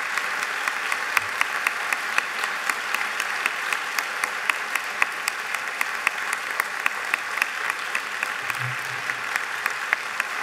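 A large audience applauding steadily, a dense wash of clapping with many single sharp claps standing out.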